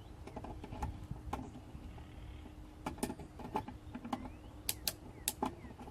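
Channel-lock pliers gripping and turning a sink drain's lock nut: irregular clicks and creaks, with a cluster of sharper clicks in the second half.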